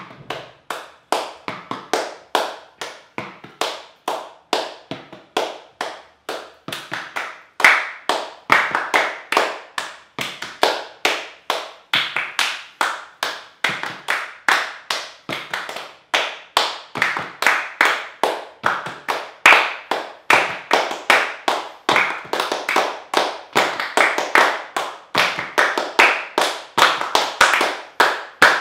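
Body percussion by a group of five boys: rhythmic hand claps and taps, several strokes a second. It starts sparser and softer, then grows louder and busier after about seven seconds.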